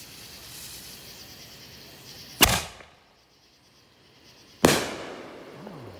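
Consumer aerial firework, a green peony with red palm shell: a sharp bang about two and a half seconds in as it launches, then a second loud bang about two seconds later as the shell bursts overhead, trailing off in a rumbling echo.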